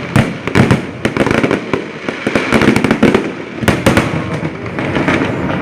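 A large fireworks display: rapid, irregular bangs and pops over continuous crackling, with a cluster of sharp bangs about two-thirds of the way in.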